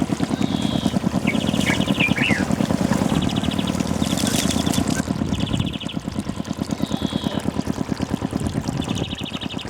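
A small engine runs steadily with a fast, even pulse. Short high bird trills and chirps sound over it several times.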